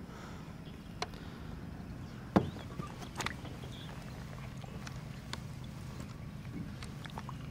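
A few knocks and clicks of handling in a small fishing boat, one sharp knock about two and a half seconds in, over a steady low hum.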